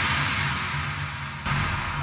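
Electronic dance music playing through a JBL Flip portable Bluetooth speaker: a wide wash of noise fading down over a pulsing bass line, with the bass picking up again about one and a half seconds in.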